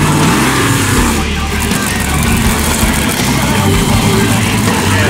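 Monster truck engine running and revving, its pitch rising and falling once about half a second in.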